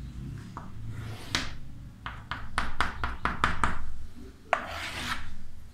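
Chalk writing on a chalkboard: a scratchy stroke about a second in, then a quick run of about eight short taps as hatch marks are dashed along a mirror arc, then a longer scraping stroke near the end.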